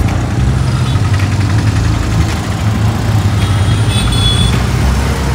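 Auto-rickshaw engine running with a steady low rumble as the three-wheeler drives through street traffic, heard from inside the open passenger cabin.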